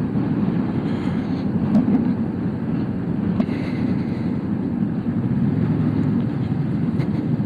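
Motorcycle running at a steady speed under way: a continuous low engine drone mixed with road noise.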